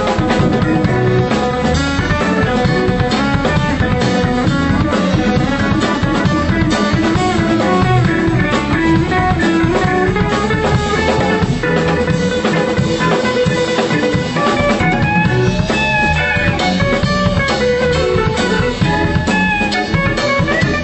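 Music with guitar and drum kit, a steady beat running throughout.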